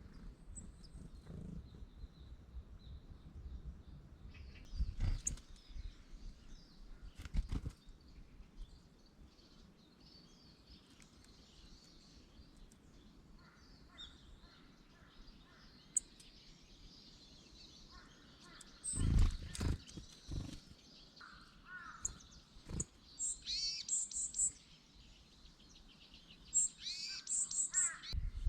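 Small wild birds chirping and calling, with short high trills coming thicker in the second half. A few loud low thuds break in, the loudest about two-thirds of the way through.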